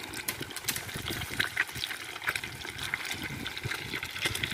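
Hot oil sizzling and crackling in an iron karahi as halved boiled eggs fry, with a metal spatula turning them in the pan.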